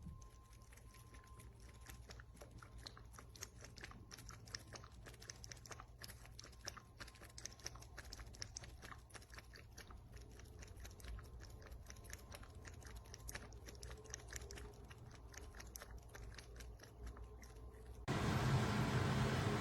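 A pet chewing: a quick, irregular run of small clicks. Near the end it is cut off by a sudden loud, steady hiss.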